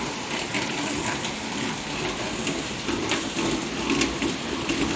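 Heavy rain pouring down: a steady hiss with scattered sharper drops and splashes.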